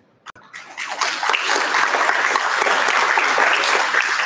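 Audience applauding, with many separate claps, starting about half a second in.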